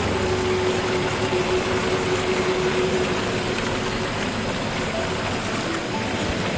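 Forest ambience sound effect: a steady, even rushing hiss, rain- or water-like. A low held musical tone under it fades away about two-thirds of the way through.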